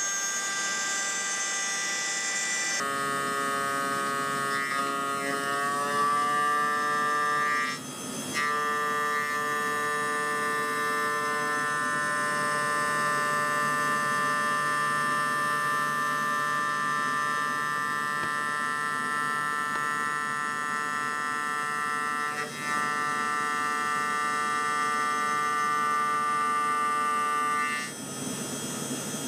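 Spindle of a homemade CNC milling machine running at high speed while it mills the adapter plate, a steady whine of several high tones. The pitch rises a few seconds in and then holds steady, with brief drops in level twice.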